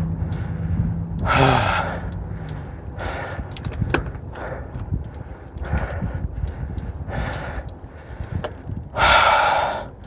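Heavy breathing of a cyclist working hard, one loud breath about every second and a half, the strongest near the end, over a low rumble from riding. A passing car's engine fades away in the first couple of seconds.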